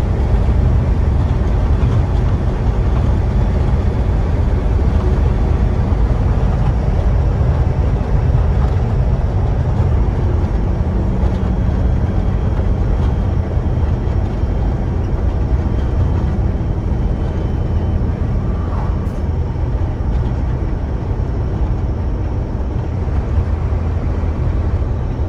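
Steady low engine and road noise inside a box truck's cab as it drives along.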